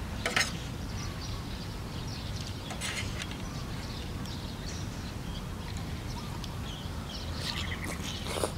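Small birds chirping now and then over a steady low rumble. A metal spoon clinks in the metal tray of rice noodles about half a second and three seconds in. Near the end a mouthful of num banh chok noodles is slurped, the loudest sound.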